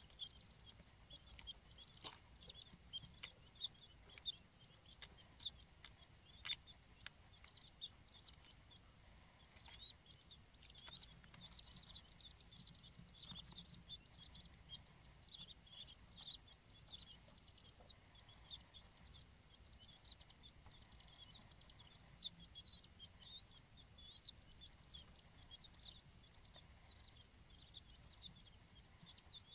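King quail chicks peeping: quiet, rapid, high-pitched chirps that run on continuously and are busiest from about ten seconds in. A few sharp clicks come early on.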